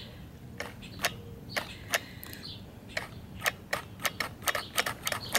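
Sharp, irregular clicks, a few a second, from a two-stroke string trimmer's throttle trigger and cable linkage being worked by hand with the engine off.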